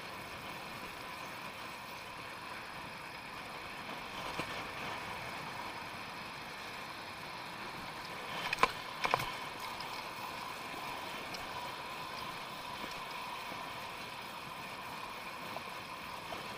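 Steady rolling and wind noise from a bicycle riding along a paved road, with two sharp knocks in quick succession a little over halfway through.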